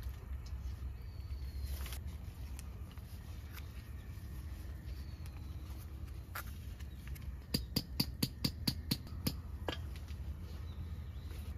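A quick run of about eight light clicks over two seconds, then one more, as a metal chopstick presses and taps a curry pouch down into a pot of simmering water. Under it a low steady rumble, with a few faint bird chirps.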